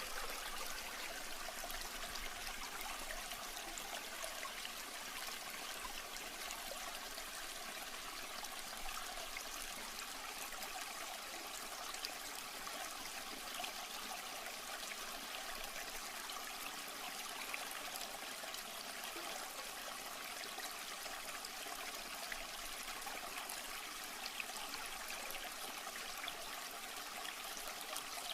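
Steady rushing of running water, an even hiss with no break or change.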